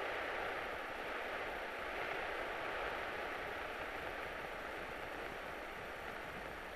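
Steady engine and airflow noise in a light airplane's cabin, heard as an even hiss through the headset intercom, with a faint thin whine held on one pitch. It fades slightly over the few seconds.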